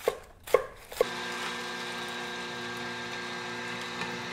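A knife chopping romaine lettuce on a wooden cutting board, three chops in the first second, then an electric juicer's motor running steadily as it presses vegetables into juice.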